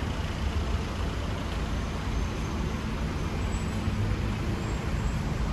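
Street traffic noise: a steady low rumble of passing road vehicles.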